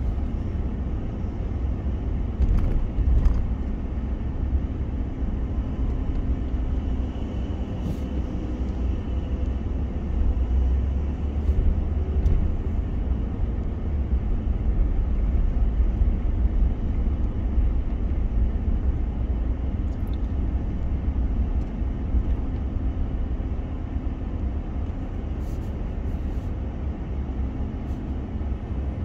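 Steady low rumble of a car driving slowly, heard from inside the cabin, with a faint engine hum and a few light clicks.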